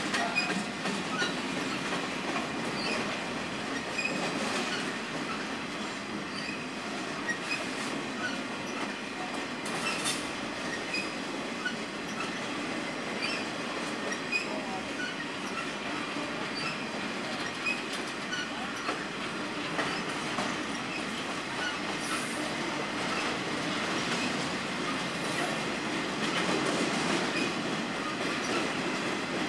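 Freight train's loaded flatcars rolling steadily past, the wheels on the rails giving a continuous rumble and rattle with scattered brief high squeaks.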